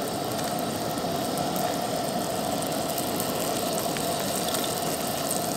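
Coleman two-burner propane camp stove burning under a cast-iron skillet: a steady hiss of the flame, with faint sizzling from butter melting in the pan.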